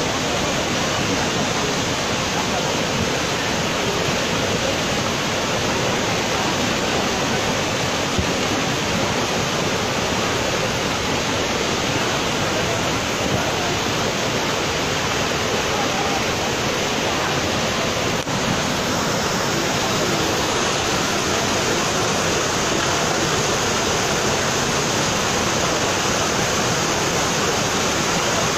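A flooded river rushing in a steady, unbroken torrent of water noise.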